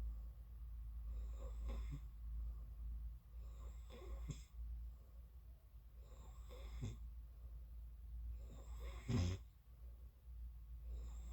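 A sleeping person snoring, one snore roughly every two and a half seconds. The fourth, a little after nine seconds in, is the loudest.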